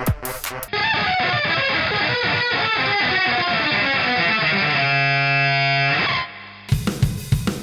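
Otamatone Deluxe played through distortion effects, sliding down in pitch for several seconds and then holding one steady note that cuts off about six seconds in. A drum beat comes in near the end.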